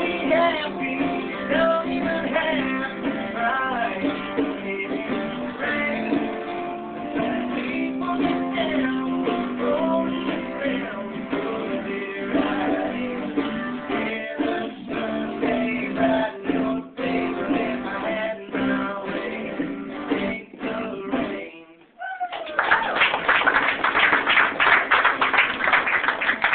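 Live acoustic band playing: acoustic guitar strumming with a singing voice. The song ends a little over 20 seconds in, and a small roomful of people claps for the last few seconds.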